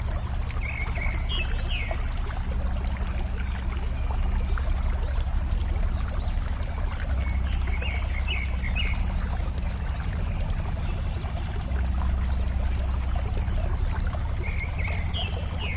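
Water flowing and babbling steadily, with a bird singing a short chirping phrase three times: about a second in, midway, and near the end.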